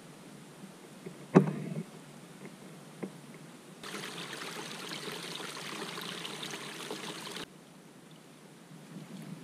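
Rainwater runoff flowing over a flooded gravel lane. A soft trickle becomes a louder, steady rush of water about four seconds in, which stops abruptly after a few seconds. A sharp thump a little over a second in is the loudest sound.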